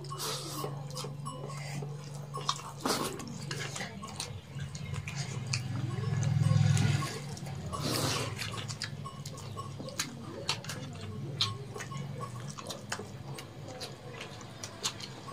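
Close-up eating sounds of people eating rice and egg curry by hand: wet chewing and many short lip-smacking clicks. Under them runs a low steady hum that swells for about a second halfway through.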